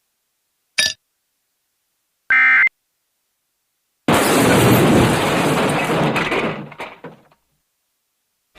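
Sound effects out of silence: a short click, then a brief buzzing electronic tone, then a sudden loud crash that dies away over about three seconds.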